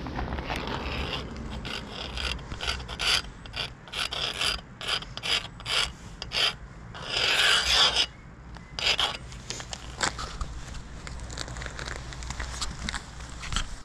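Marker tip scraping across a rusty metal plate in a run of short quick strokes, with one longer, louder stroke about halfway through, then lighter scratching.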